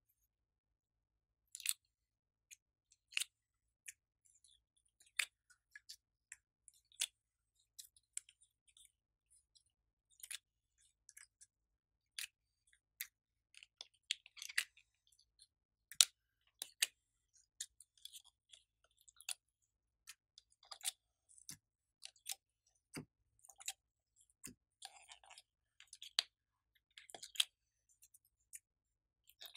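Irregular sharp clicks and crackles of slime being handled: glossy slime squeezed out of a clear plastic palette tray's compartments into a glass dish and pressed with the fingers, with a couple of soft thuds past the middle.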